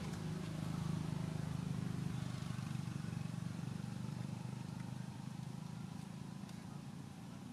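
Steady low engine hum from a running motor vehicle, slowly fading toward the end.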